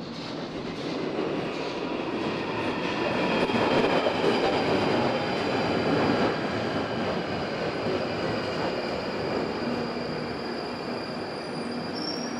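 Underground train pulling into a station platform. The rumble of the train swells to its loudest about four to six seconds in, then eases as it slows to a stop, with high-pitched wheel and brake squeal throughout.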